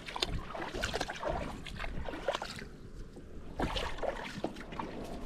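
Water splashing and dripping around a kayak, in irregular strokes about a second or more apart, as of a paddle dipping in the water.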